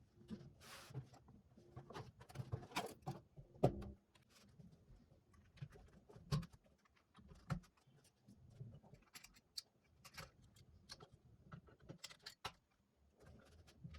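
Scattered light clicks, taps and knocks of computer parts and hardware being handled during a PC assembly, with a brief rustle near the start and one sharper knock a few seconds in.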